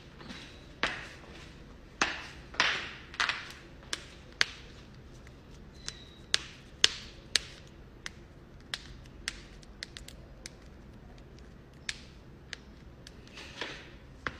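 A run of sharp cracks and pops from joints being cracked, about twenty of them at uneven intervals, each very short, with a few brief rushing sounds among the first few and near the end.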